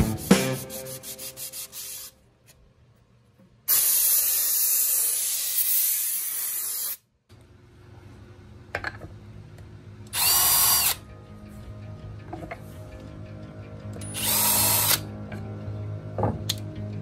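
Handheld power drill running in two short bursts, about ten and fourteen seconds in. Earlier, from about four to seven seconds in, there is a longer, louder stretch of steady rushing noise.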